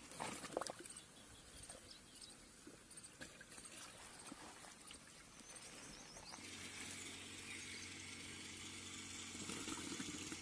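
Cow drinking kudithi, water mixed with rice bran and flour, from a tub: faint slurping and liquid sloshing with small splashes. A steady low hum comes in about six seconds in.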